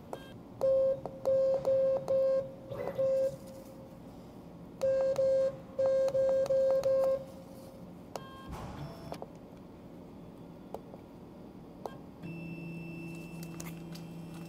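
Short electronic beeps from the CNC router's controller as buttons are pressed while zeroing the bit, two runs of about five or six beeps each. A steady low hum starts about twelve seconds in.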